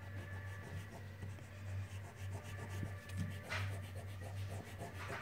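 Pencil eraser rubbing back and forth on paper, erasing pencil lines, with a couple of louder swishes in the middle and near the end. A steady low hum runs underneath.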